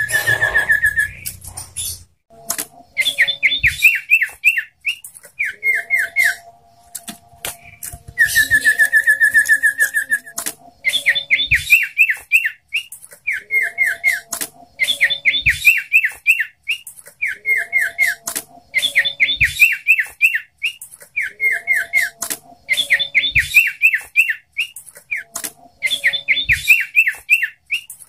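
Common iora (sirtu) singing: repeated phrases of quick, down-slurred chirping notes about every two seconds, with one longer, even trill about eight seconds in.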